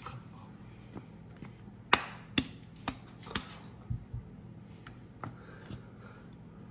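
Four sharp plastic clicks about half a second apart, then a couple of dull knocks, as a plastic squeeze bottle of honey is squeezed and handled. The honey has crystallized hard and will not flow.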